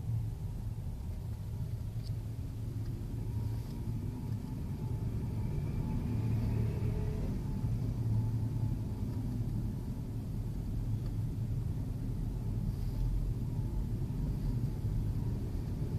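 Kia K9 cabin noise while driving: steady low road and engine rumble. From about five to eight seconds in, a faint wavering moan rises over it. This is the abnormal noise the owner likens to a ghost wailing, and he says it is not the car's normal sound.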